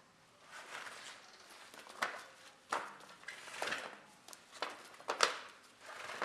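Rubber inner tube being pulled free of a bicycle tyre and rim, an irregular run of rubbing and scuffing handling noises with several sharper scuffs in the second half.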